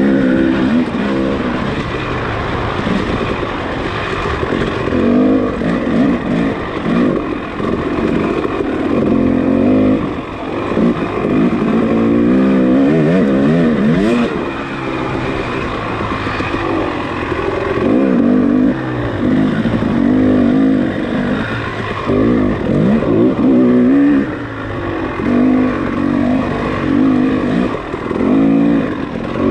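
Off-road racing motorcycle engine being worked hard, its pitch climbing and dropping again and again as the throttle opens and closes, over a steady rushing noise.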